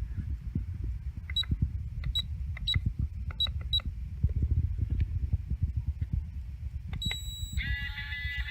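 Electronic keypad of an RV Keyless deadbolt lock beeping as the code is punched in: five short beeps within about two and a half seconds. About seven seconds in, the lock gives a short higher beep, then a sustained, slightly wavering multi-tone whine starts near the end.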